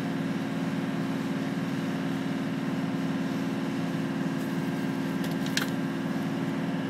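Ursus C-360 tractor's four-cylinder diesel engine, fitted with an added turbocharger, running steadily at an even speed. A few sharp clicks come near the end.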